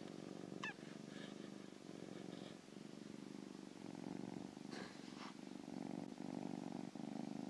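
Domestic cat purring steadily while being stroked, the purr coming in waves with short dips between them. Less than a second in there is one brief high squeak that falls in pitch.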